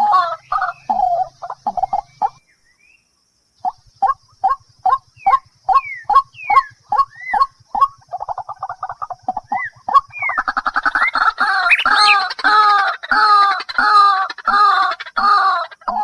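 Birds calling in quick, repeated short notes, some sweeping upward, broken by a brief silence about two and a half seconds in; from about ten seconds in the calls come thicker and overlapping, as from several birds.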